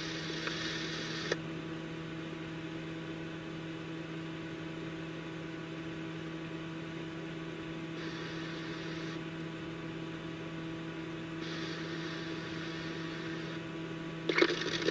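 Steady electrical hum and faint hiss from a radio scanner feed between transmissions. There are three stretches of louder hiss of a second or two each: one at the start, one about 8 seconds in and one about 11 seconds in.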